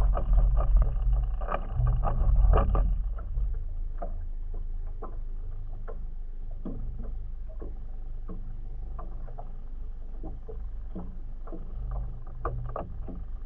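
Water slapping against the hull of a small drifting boat: irregular light knocks and splashes over a low steady rumble, which is loudest in the first three seconds.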